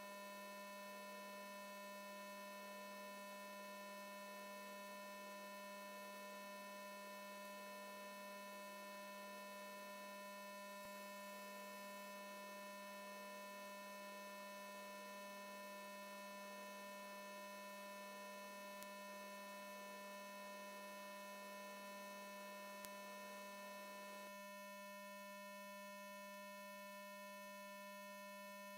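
Near silence apart from a faint, steady electrical hum with a thin high whine of several steady tones; some of the middle tones drop away about 24 seconds in.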